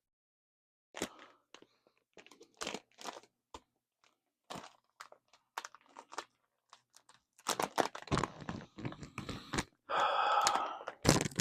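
Plastic packaging of a pack of soft plastic fishing lures crinkling and rustling as it is opened and handled, in scattered crackles at first, then busier and louder in the last few seconds.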